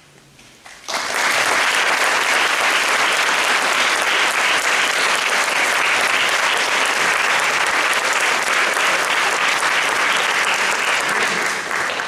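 Audience applauding, breaking out suddenly about a second in after a moment of quiet and then going on steadily.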